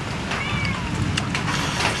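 Tearing and eating grilled chicken by hand: a leg pulled apart from the bird and bitten into, with scattered sharp crackles and clicks over a steady low rumble. A brief high wavering cry is heard about half a second in.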